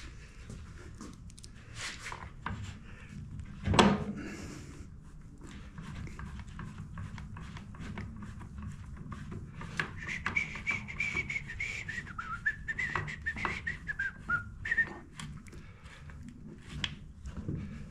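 A person whistling a wandering tune for about five seconds, starting about ten seconds in, over small clicks of metal parts being handled; a sharp knock about four seconds in.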